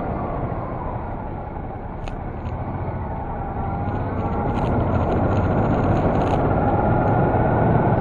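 Honda Deauville NT650V's V-twin engine heard from the moving bike, easing off early on, then climbing in pitch and loudness as it accelerates, over a steady rush of wind on the microphone.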